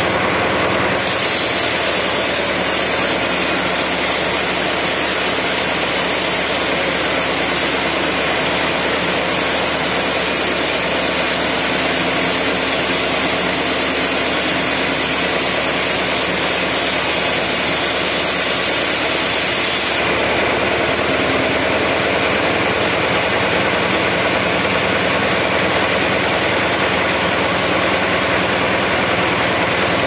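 Band sawmill running steadily while its blade saws lengthwise through a teak log. A high hiss of the blade in the wood sets in about a second in and stops about two-thirds of the way through, when the cut ends, while the machine keeps running.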